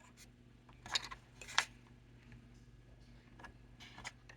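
Short clicks and light clatter of small hard laptop parts being handled, in two bursts about a second in and twice more near the end.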